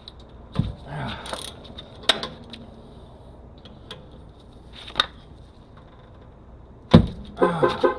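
Scattered metal clinks and knocks from hand tools on the brakes, then a heavy thump about seven seconds in. Right after it the Toyota 4Runner's horn starts sounding in rapid, repeated short blasts: the vehicle's anti-theft alarm has been set off.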